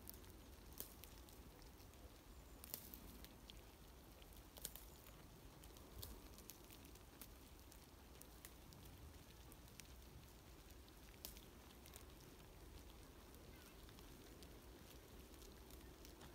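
Near silence: faint outdoor ambience with scattered soft clicks and crackles.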